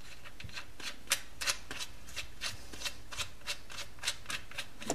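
Light ticking, about three a second, as a threaded drain plug with a new O-ring is spun by hand into a Honda CB750 engine case.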